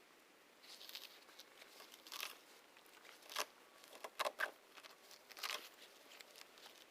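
Weeds being pulled up by hand: faint, irregular rustling and tearing of stems and roots coming out of the soil, in several short bursts.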